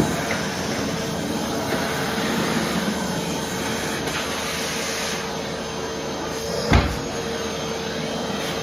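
Vacuum cleaner running steadily, a constant whooshing drone with a steady hum. One sharp knock late on, as of the nozzle or machine bumping something.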